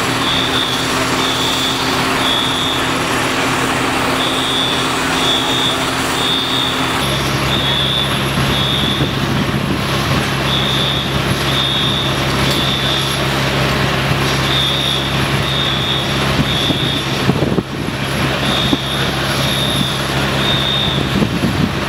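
A parked fire engine's diesel engine running steadily, with a high electronic beep repeating in sets of three. About seven seconds in, the engine note drops to a lower pitch.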